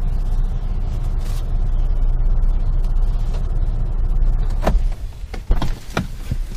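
Nissan car's engine idling just after a cold start in freezing weather, heard from inside the cabin as a steady low rumble; the owner says it does not sound good. About five seconds in the rumble drops away and a few sharp clicks and knocks follow.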